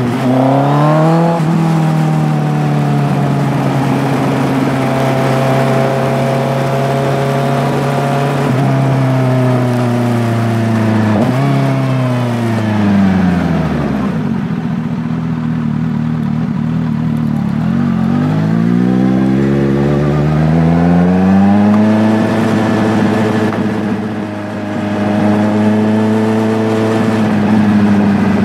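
An engine running under changing throttle, its pitch climbing and falling with a few abrupt jumps in pitch early on, sinking to a low note about halfway through, then climbing again.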